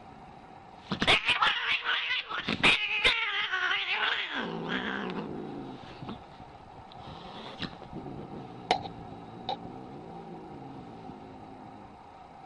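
An angry Scottish Fold cat hissing and spitting about a second in, a loud harsh run of sharp spits lasting about three seconds. It then settles into a lower wavering growl that trails off more quietly, with a few short sharp clicks near the end.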